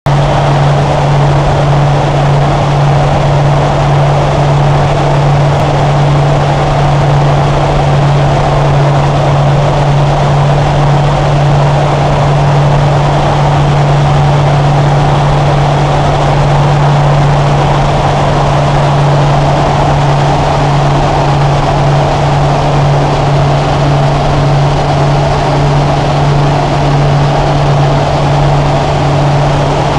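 Light propeller aircraft's engine and propeller heard from inside the cabin in cruise: a loud, steady drone with a strong low hum that holds even throughout.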